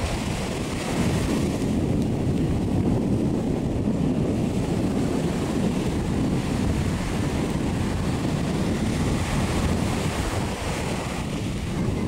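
Wind buffeting the microphone over the steady wash of ocean surf, a low, even noise with no distinct calls that grows louder about a second in.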